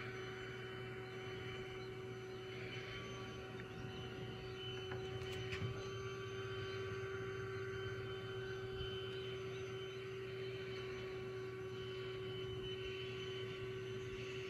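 Faint, steady mechanical hum holding one constant pitch throughout, over quiet outdoor background.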